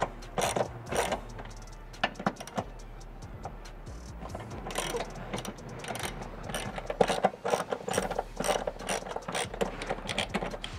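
Hand ratchet and socket clicking in several quick runs while backing out 14 mm bolts from the transmission mount. The runs are loudest about seven seconds in.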